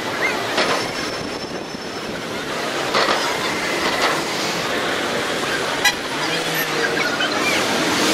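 Busy city street traffic at night: a steady wash of passing cars and taxis, with car horns tooting now and then. A single short sharp click about six seconds in.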